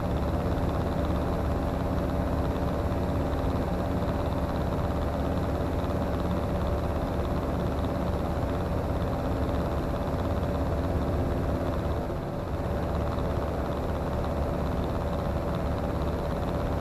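Comco Ikarus C42C ultralight's engine and propeller running steadily in cruise: an even drone with a steady hum, dipping slightly about twelve seconds in.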